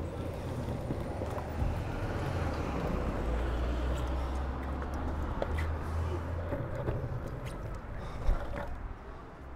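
Longboard wheels rolling over uneven paving slabs: a steady gritty rumble with clicks as the wheels cross the joints, and a sharp knock about eight seconds in. The rumble fades near the end.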